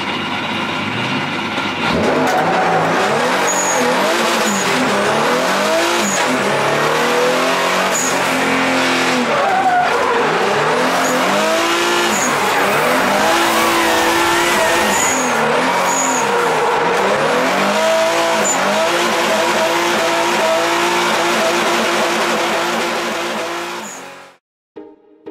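Drift car engine revving hard, its pitch rising and falling again and again, over a steady hiss of tyres skidding sideways. The sound cuts off abruptly near the end.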